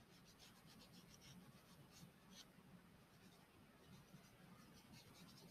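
Faint scratching of a stick of chalk rubbed lightly across paper, a run of short irregular strokes as an area is shaded in, over a low room hum.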